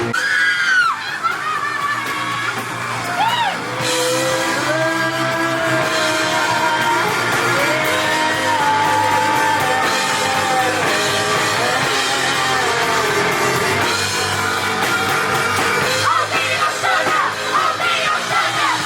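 A live band playing a song with a singer holding and sliding between sung notes, some of them yelled, over loud guitars and drums.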